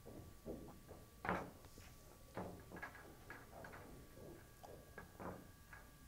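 Pool balls clacking together as a 10-ball rack is set up by hand in a triangle rack: a string of short, faint clicks and knocks, about two a second.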